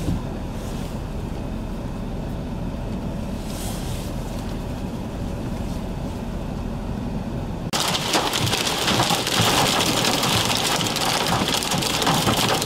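A steady low rumble, then about eight seconds in an abrupt switch to loud, heavy wind-driven rain pelting the vehicle, a dense rushing hiss full of small hits.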